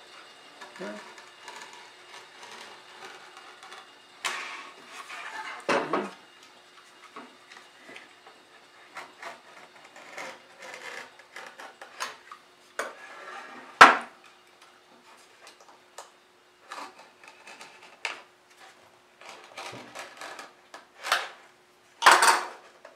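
Utility knife scraping and cutting through the thin strip of maple left holding a box lid on after a table-saw cut, with scattered clicks and knocks as the box is handled on the saw table. One sharp knock about two-thirds of the way through is the loudest sound.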